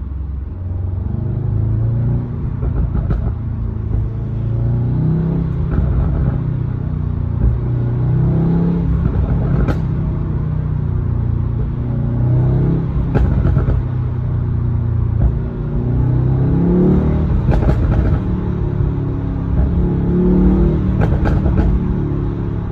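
2018 Mercedes-AMG E63's twin-turbo V8 being revved over and over in blips, with sharp pops and crackles from the exhaust as the revs fall, from a pops-and-bangs tune.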